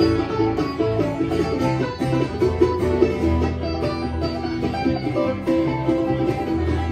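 Country band playing an instrumental passage: quick plucked-string picking over a walking bass line, with no singing.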